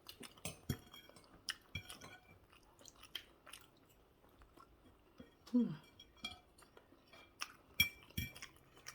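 Close-up chewing and mouth sounds of people eating fried plantain and egg, with scattered light clicks, and a brief hum from a voice a little past halfway.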